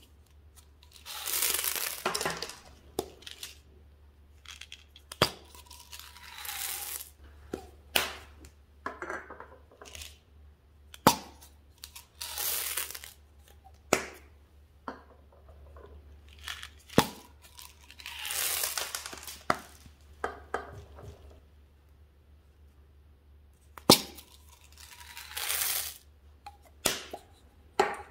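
M&M's candies poured from a small cup into a glass dish of slime: five rattling pours a few seconds apart, with sharp single clicks between them.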